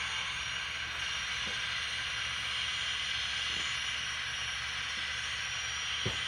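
Recorded gas-turbine running sound from the sound decoder of a ScaleTrains Rivet Counter Turbine #1 model locomotive, played through its small onboard speaker: a steady hissing whine over a low hum as the model crawls along at low speed, with a couple of faint ticks.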